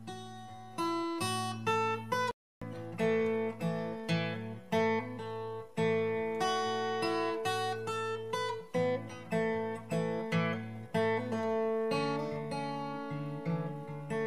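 Background music: an instrumental passage on acoustic guitar, picked notes ringing and dying away one after another. The sound cuts out completely for a moment about two seconds in.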